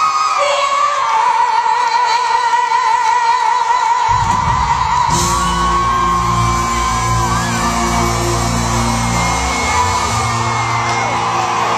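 Live soul ballad: a woman sings one long, high held note with a wide vibrato into a microphone. About four seconds in, the band comes in under her with low sustained chords, and audience members whoop.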